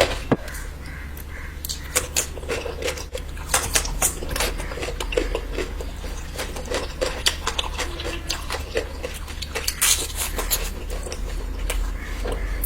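Close-miked eating of curry: sharp, irregular clicks and taps of dishes and cutlery, with short wet mouth sounds between them, over a steady low hum.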